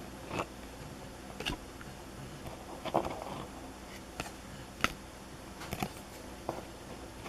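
Baseball trading cards being handled and flipped through by hand: irregular light clicks and snaps, about eight in a few seconds, with a short rustle about three seconds in, over a steady low hum.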